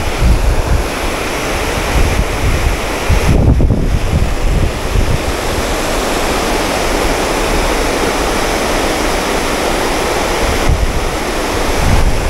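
Steady rush of water pouring over a low-head dam spillway, with wind buffeting the microphone in gusts near the start, about a third of the way in, and near the end.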